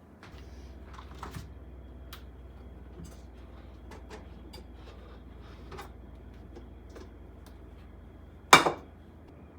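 Light clicks and taps of kitchenware over a low steady hum, with one sharp, loud clink of dishes or glass about a second before the end.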